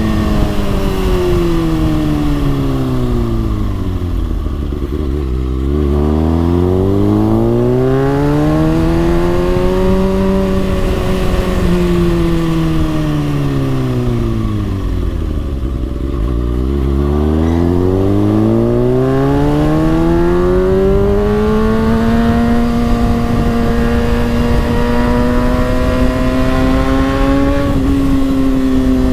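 Kawasaki ZX-6R 636's inline-four engine running, its pitch sweeping smoothly down to a low note about five seconds in, back up, down again around sixteen seconds, then climbing slowly to a high, steady note near the end.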